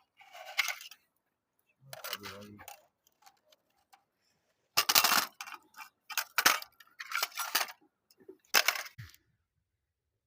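Irregular clicks and short rattling bursts, several of them with silent pauses in between.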